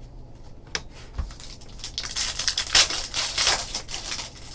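Trading card pack wrapper crinkling as it is handled and torn open. A couple of light taps come first, then a burst of crinkling and tearing about two seconds in.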